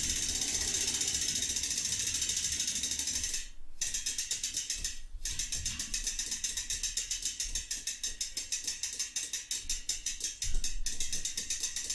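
Bicycle rear hub ratchet clicking in a fast, even stream as the wheel is spun by hand to check the rim for wobble during truing. The clicking breaks off briefly twice around the middle, where the wheel is given another push.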